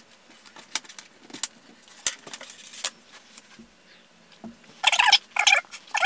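Light clicks and rattles of wires and metal crocodile clips being unclipped and handled as a small 12V test circuit is taken apart. About five seconds in comes a quick series of high, squeaky chirps.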